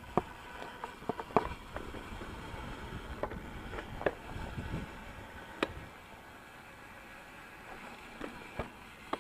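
Ibis Mojo HD3 mountain bike riding fast down a dirt singletrack: a steady low rumble of tyres and wind, broken by sharp clicks and rattles from the bike over bumps, busiest in the first half.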